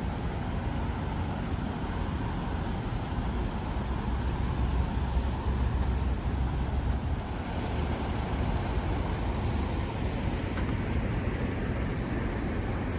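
Street traffic noise: vehicles running and passing, with a louder low rumble for a few seconds near the middle.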